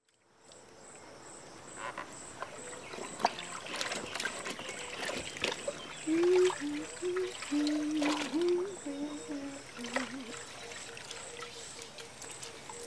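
Clothes being hand-washed in a plastic basin of water: splashing, sloshing and dribbling as the laundry is scrubbed and wrung out. A low, wavering tone sounds for a few seconds in the middle.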